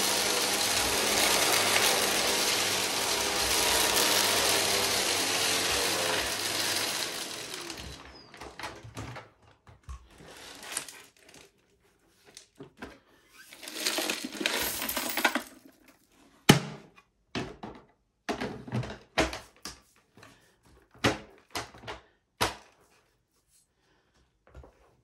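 Vacuum cleaner running steadily, then switched off about eight seconds in, its motor winding down with falling pitch. Afterwards, scattered sharp clicks and knocks, with a short rushing noise about halfway through.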